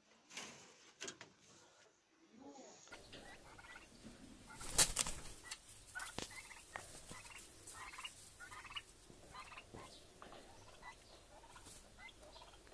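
Poultry calling: a run of short, repeated calls, with a single sharp knock about five seconds in. Before that, a few clicks and knocks from a different clip.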